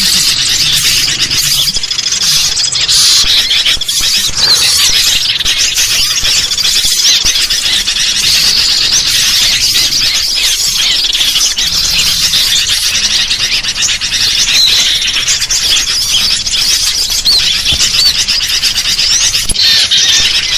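Dense, continuous chorus of bird calls: sooty-headed bulbuls chattering noisily, mixed with the calls of small songbirds, many short high notes overlapping without a break.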